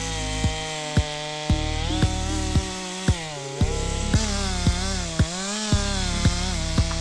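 Chainsaw engine running, its pitch dipping and rising as it bites into the wood. Under it runs background music with a steady kick drum about twice a second.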